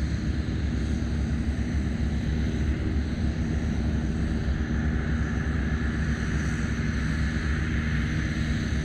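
Jet engines of a Boeing 737 MAX 8 airliner on approach, a steady drone with a low hum underneath and a higher whine that strengthens from about five seconds in.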